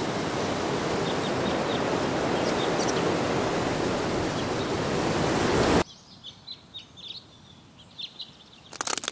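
Forest ambience: a loud, steady rushing of the woods, with small birds chirping through it. The rushing cuts off suddenly about six seconds in, leaving only the bird chirps over near quiet. A few sharp clicks start at the very end.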